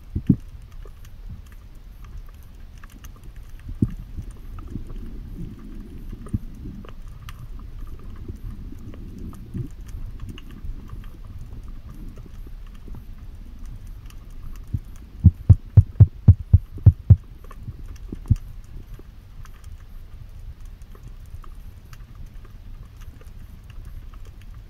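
Underwater sound on a spearfisher's camera: a low murmur with a faint crackle of small clicks. About two-thirds of the way through comes a quick run of about eight loud, low knocks, then one more.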